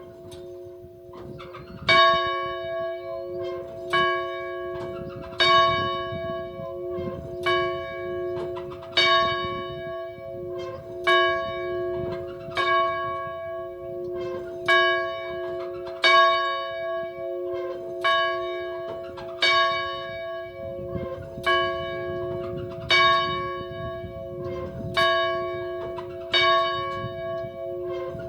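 A single church bell ringing, struck about once a second, every other strike louder, its tone ringing on between strikes. The strikes break off briefly once, about two seconds in.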